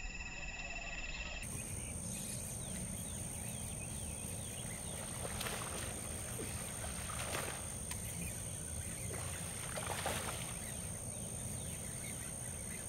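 Steady outdoor background noise with a low rumble, broken by a few short crackling sounds about five, seven and ten seconds in.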